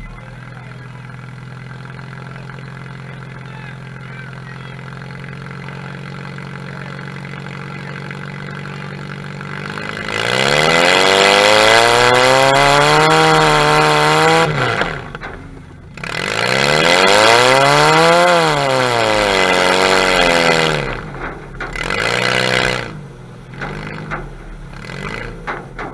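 Demolition derby car's engine idling steadily, then revved hard twice, each rev climbing and falling over several seconds, with a few shorter blips of the throttle near the end.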